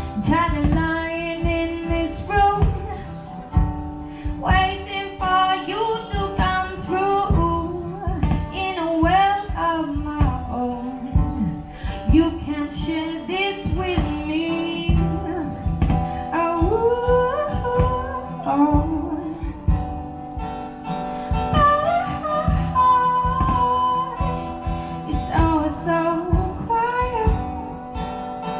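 Live acoustic song: a woman singing over a strummed acoustic guitar.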